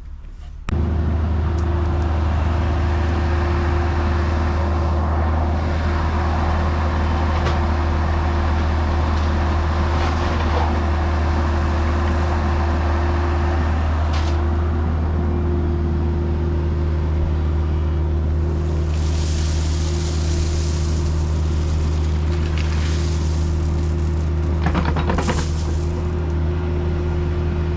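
Diesel engine of construction equipment, such as a compact loader or excavator, running steadily at a constant speed. It starts abruptly about a second in, and brief hissing bursts come twice in the second half.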